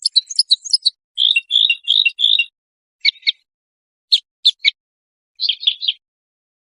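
Songbird song on a clean recording with no background noise: short phrases of quick chirps and trills with brief pauses, several notes at a time, one run of slurred chirps about a second in and a quick trill near the end.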